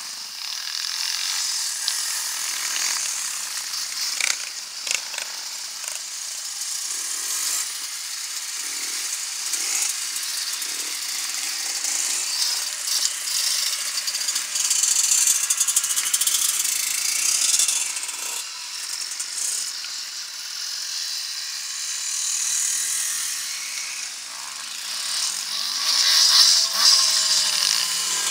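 Off-road motorcycle engines revving as enduro dirt bikes ride past one after another, a high, raspy buzz. It swells loudest about halfway through and again near the end.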